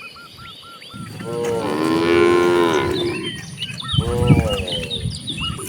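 Cows mooing: one long, drawn-out moo starting about a second in, then a second moo about four seconds in.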